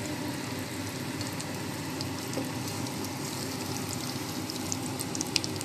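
Egg omelette frying in oil in a non-stick pan: a steady sizzle with scattered small pops.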